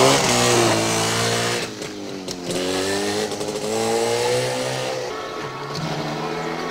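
Jawa two-stroke motorcycle engine pulling away and accelerating. Its pitch climbs and drops back as it shifts up, about two seconds and about five seconds in.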